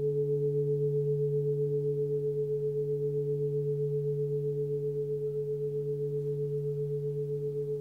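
Hand-forged 26 cm Sun Moon singing bowl, tuned to D at about 146 Hz, ringing on and slowly fading. Its tone wavers in a steady, even pulse.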